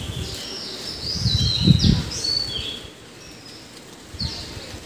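Several birds chirping and calling in quick, short notes that slide in pitch, with brief low rumbles about a second or two in.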